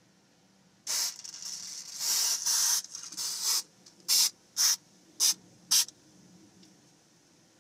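Aerosol can of 3M Super 77 spray adhesive hissing: one long, uneven spray of about three seconds, then four short bursts in quick succession.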